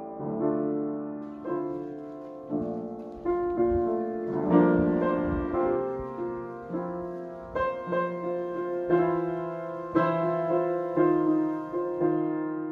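Slow, gentle piano music, with a note or chord struck about once a second and each fading away before the next.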